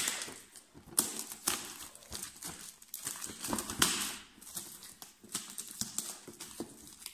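Packaging crinkling and rustling as it is handled and opened, with frequent sharp clicks.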